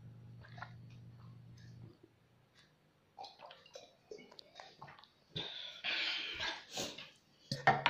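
A person drinking water from a glass with small swallowing sounds, then breathing out hard in loud breathy gasps from about five seconds in.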